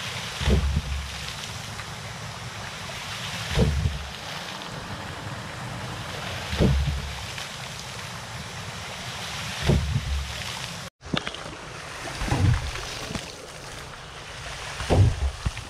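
4-inch double-valve hydraulic ram pump working: a heavy water-hammer thump about every three seconds as its waste valves slam shut, with a steady rush of water between beats. Briefly cuts out about eleven seconds in, then the thumps go on.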